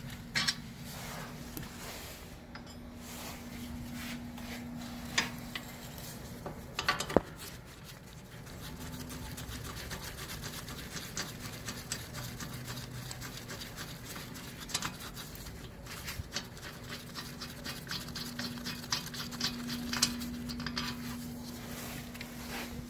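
Hand tools clicking, scraping and clinking on the metal of the rear hub as the loosened hub-mounting bolts are backed out. Irregular small clicks and rubs, more frequent near the end, over a faint steady low hum.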